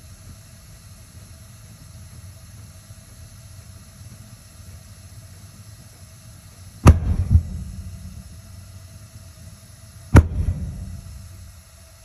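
Gas water heater burner going off with loud bangs over a low steady rumble: a sharp double bang, then about three seconds later a single bang, each followed by a short rumbling tail. The owner calls it an exploding, backfire-type ignition that keeps happening even after the thermocouple was replaced.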